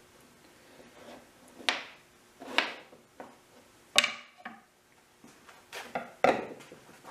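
Small wooden blocks being handled and set down on a wooden board, giving a series of irregular sharp wooden knocks and clatters, the sharpest about four seconds in.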